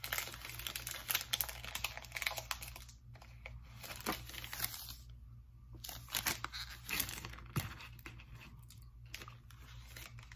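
Crinkling and tearing of the foil inner wrapper and paper outer sleeve of a Cadbury Dairy Milk chocolate bar as it is unwrapped. The sound is densest for the first three seconds, then comes as scattered shorter crinkles.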